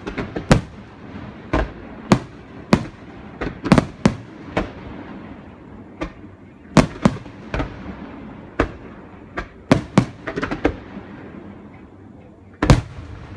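Aerial fireworks going off: a string of sharp bangs at irregular intervals, some in quick clusters, with crackling between them. There is a lull in the middle, and a loud bang comes near the end.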